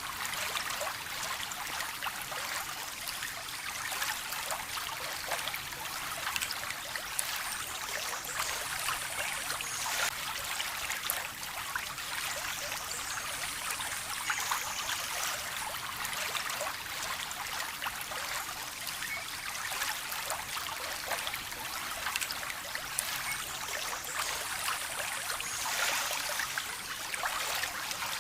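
Small stream of water trickling and splashing steadily, a bright burble of many tiny splashes with little low rumble.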